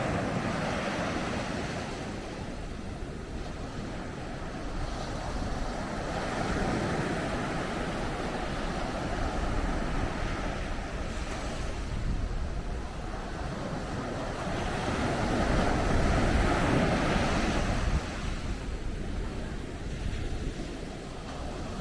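Sea waves breaking and washing up a beach. The surf swells and eases every few seconds, loudest a few seconds before the end.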